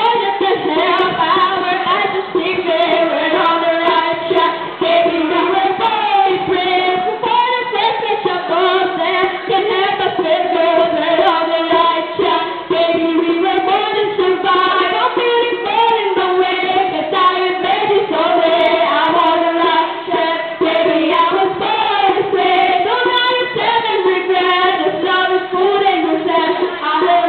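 Young girls singing a pop song into microphones, with light percussion tapped out on kitchen pots and pans.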